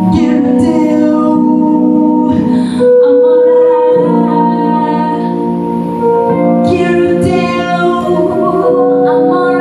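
A woman singing live into a microphone, holding long notes, accompanied by an upright double bass.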